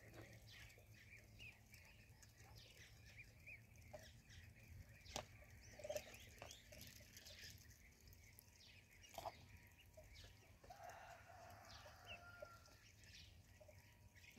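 Ducklings peeping softly, many short high chirps overlapping throughout, with a sharp tick about five seconds in.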